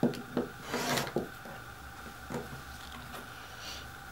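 Rotary cutter trimming a layered cotton quilt block along an acrylic ruler on a cutting mat: one short scraping cut about a second in, with a few light knocks and taps from the ruler and cutter being handled.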